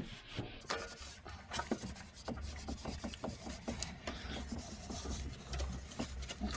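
A cloth wet with degreaser rubbing and scrubbing over the painted steel of a car's engine bay, in short, irregular scraping strokes with small knocks, over a low steady rumble.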